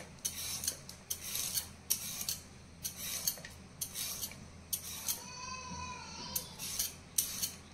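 Vegetable peeler scraping down raw carrots, peeling them in short scratchy strokes about two a second, with a brief pause about two-thirds of the way through.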